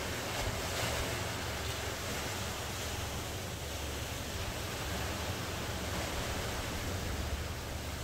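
Ocean surf: waves breaking and washing on the shore in a steady, even rush that swells a little in the first second or two.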